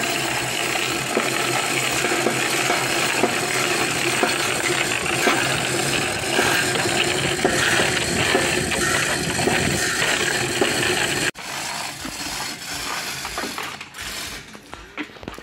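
Manual chain hoist being hauled hand over hand to lift a stack of line-array speaker cabinets, its chain rattling continuously through the block. The rattle cuts off suddenly about eleven seconds in, leaving quieter scattered clicks and clatter.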